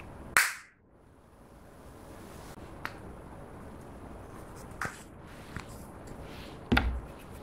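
Sharp plastic clicks and taps from handling a heart-shaped plastic eyeshadow compact as its clear hinged lid is opened. Two louder clicks come about half a second in and near the end, with a few lighter ticks between.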